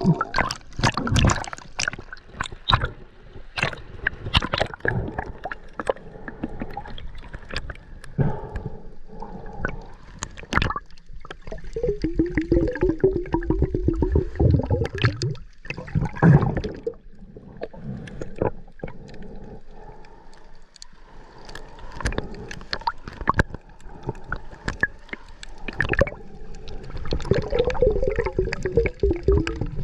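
Water gurgling and sloshing around a snorkeller, with many scattered clicks and knocks, and stretches of rapid bubbling in the middle and again near the end.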